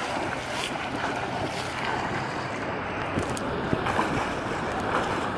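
Sea water sloshing and splashing close to a camera held at the water's surface: a steady churning wash with a few small splashes.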